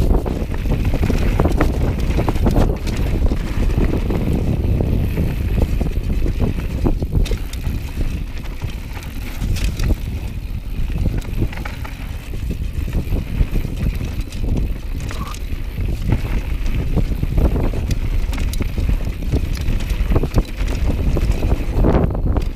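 Downhill mountain bike running fast down a rocky gravel singletrack: a steady low rumble of tyres on loose gravel mixed with wind buffeting the camera's microphone, broken by scattered sharp clicks and knocks as the bike jolts over stones.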